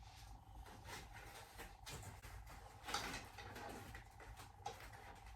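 Faint handling noises: light rustling and a few small knocks as parts and cables of a Halloween animatronic are fitted together, over a faint steady hum.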